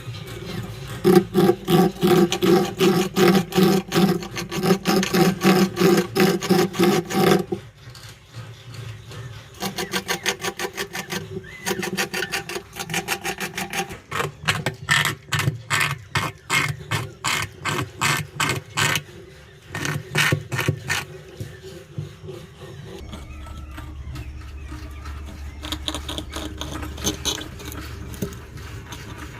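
Bamboo rats gnawing: fast, rasping strokes, several a second, in bouts of a few seconds with short pauses between them. A steady low hum joins in near the end.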